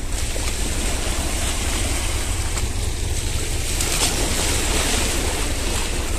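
Sea waves washing over a rocky shore, a steady rush of surf, with wind buffeting the microphone.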